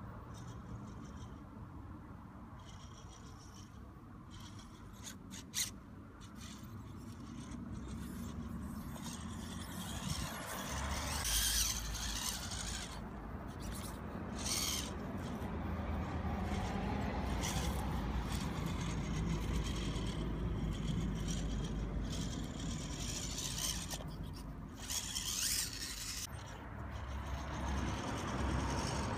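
Small electric RC rock crawler climbing rock: its motor and gears whir in uneven spurts while the tyres scrape and click against stone, over a low steady rumble. A sharp click comes about five and a half seconds in.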